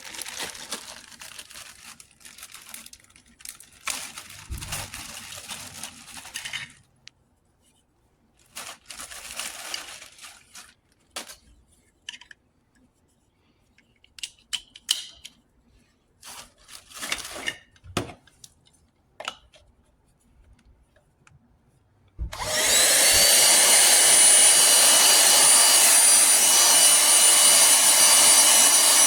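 Handling noises, rustles and clicks, then about 22 seconds in a cordless handheld vacuum cleaner switches on suddenly and runs steadily with a high motor whine.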